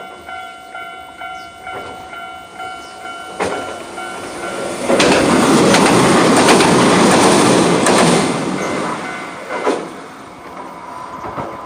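A level-crossing warning bell rings at about two strokes a second, then a Hiroden train passes the crossing. The loud rumble of the train's passing peaks for about three seconds, with sharp wheel clicks over the rail joints, then fades.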